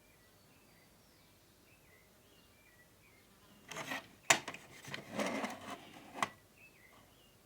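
Film packaging or disc case being handled: a few seconds of rubbing and rustling with a sharp click partway through and another near the end, over faint bird chirps.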